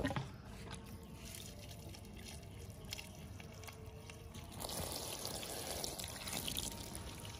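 Water pouring into an inflatable plastic paddling pool, a steady splashing trickle that starts about halfway through; before it, only a few faint taps.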